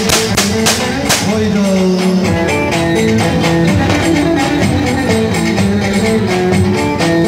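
Live Turkish folk dance music: a melody line with sliding notes over the steady beat of a davul bass drum, the drum strokes heavy in the first second and lighter after.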